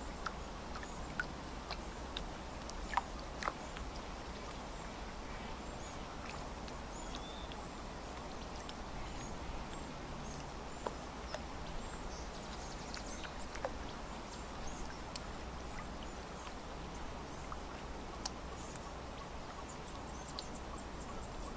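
Lakeside ambience: a steady hiss with scattered short bird chirps and calls, and a few sharper clicks, the loudest about three seconds in.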